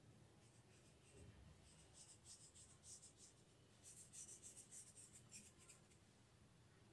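Faint, irregular dry scratching and ticking of fingers sprinkling and rubbing maida flour over a greased metal idli plate, in two short spells.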